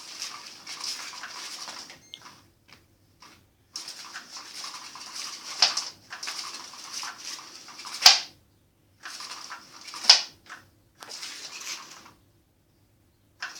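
Cat toy scratching and rustling against fabric in stop-start bursts of a second or two, with short silent pauses between them. Three sharp loud clicks stand out in the middle of the stretch.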